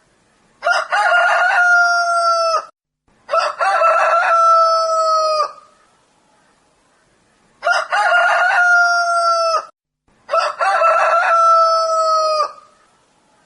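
Rooster crowing four times, in two pairs of long cock-a-doodle-doo calls, each about two seconds long and dropping in pitch at the very end.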